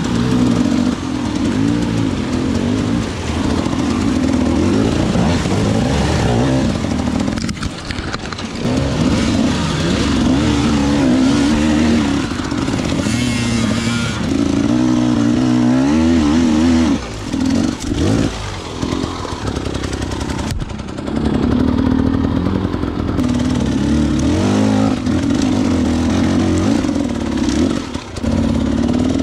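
Husqvarna enduro motorcycle engine being ridden, its pitch rising and falling with the throttle. The revs drop briefly a little past the middle and again near the end.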